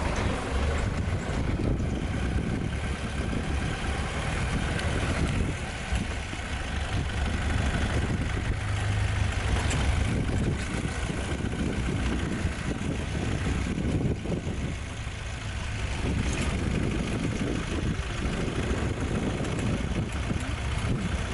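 Safari vehicle's engine running with a steady low rumble as it drives along.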